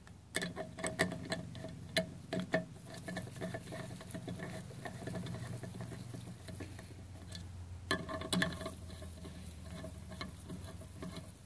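Small metal clicks and clinks of the ball tube lock nuts and tool against the diesel oil rail as the nuts are seated and threaded in by hand, some with a short metallic ring. A quick run of clinks comes near the start and another about eight seconds in.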